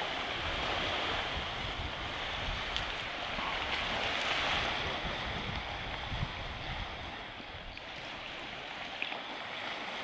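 Small sea waves washing steadily over rocks and pebbles at the shoreline, with wind buffeting the microphone in low rumbles.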